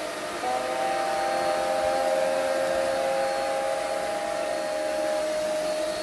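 Cordless stick vacuum with a wet-mop scrubbing floor head running steadily over a hard floor: a continuous motor whine over airflow hiss. A second pair of tones joins about half a second in and drops out about five seconds in.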